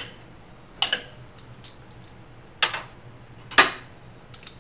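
Sharp metallic clicks and clinks of a ratchet and socket on the new water pump's bolts as they are snugged down, alternating between bolts. There are four separate clicks about a second apart, some doubled, and the loudest comes about three and a half seconds in.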